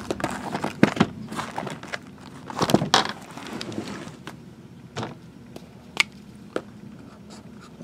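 Shrink-wrapped cardboard trading-card boxes handled and restacked: irregular knocks and scrapes as boxes are set down and slid into place, the loudest around one and three seconds in, then a few single taps.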